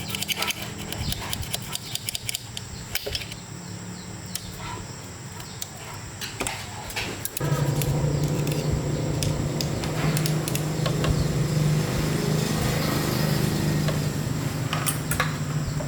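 Scattered clicks and knocks of handwork on metal, then about seven seconds in a motor starts abruptly and runs with a steady hum.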